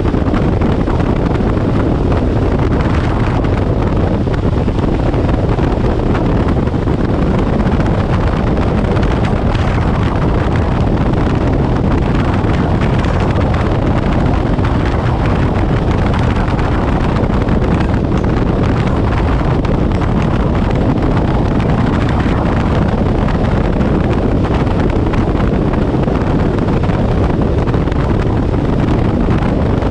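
Steady, loud wind buffeting the microphone at about 72 mph, with the bass boat's Evinrude E-TEC 250 two-stroke outboard running at high speed underneath it.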